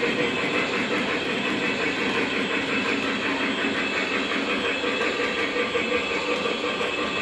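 Model freight train running on metal track: a steady rumble and clatter of its wheels, with the lit caboose passing at the start as the train runs on around the layout.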